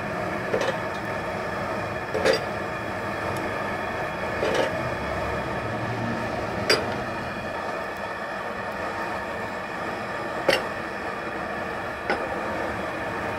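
Propane burner running steadily under a tin-can crucible, with about six sharp metal clinks as lumps of scrap metal are dropped into the can to melt.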